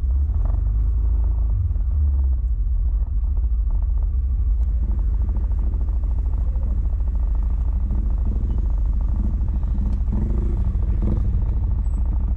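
Yamaha Smash underbone motorcycle's small single-cylinder engine running steadily while riding, under a heavy, steady low wind rumble on the action camera's microphone.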